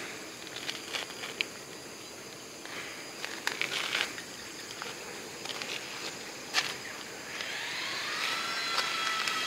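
Scattered clicks and knocks of a hand-held camera being moved and handled. About seven seconds in, a whine rises in pitch and settles into a steady high tone.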